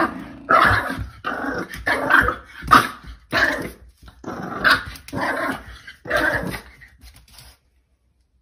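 Bulldog growling and barking in a run of short bouts, about eight in six seconds, as it plays at a spring doorstop.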